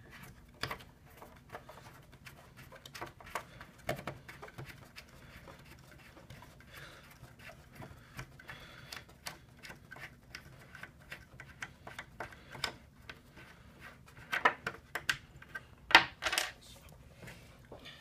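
Plastic cord grip being unscrewed by hand from a plastic junction box: scattered small clicks and ticks of the threads and of fingers handling the parts, with a few louder clacks near the end.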